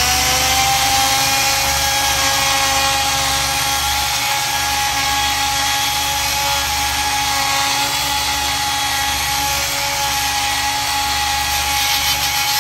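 Cordless Milwaukee oscillating multi-tool running steadily with a grout-removal blade, making a high whine as the blade cuts out soft, day-old grout between floor tiles.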